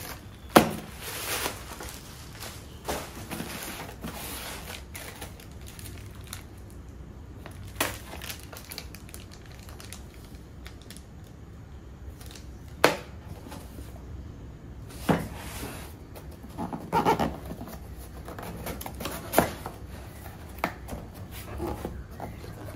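Unboxing an Edge On Up PT50A knife-sharpness tester and its packaging: a handful of sharp clicks and knocks a few seconds apart as parts are handled and set down, with a short spell of crinkling partway through.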